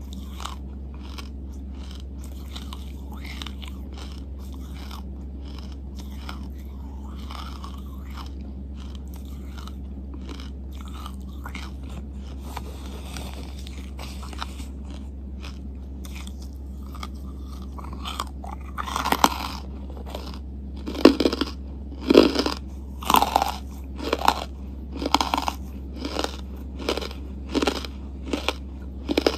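Close-miked chewing of charcoal: soft, faint mouth clicks at first, then from about two-thirds of the way in, loud, crisp crunches about once a second as hard lumps of charcoal are bitten and ground between the teeth. A steady low hum runs underneath.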